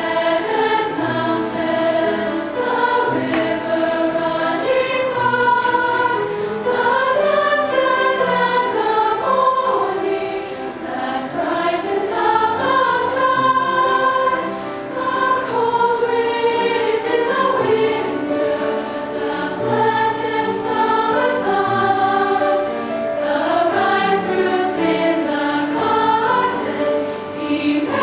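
Women's chorus singing in several parts.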